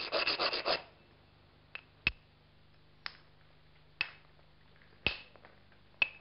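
Limestone hammerstone worked against the edge of an obsidian biface: a quick run of rapid scraping clicks lasting under a second, then single sharp stone-on-glass clicks about once a second.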